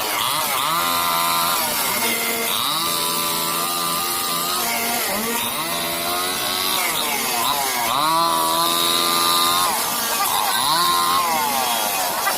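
Two-stroke chainsaw cutting through a fallen tree trunk. Its engine pitch dips under load and climbs back several times, about every two to three seconds, as it is revved and pressed into the wood.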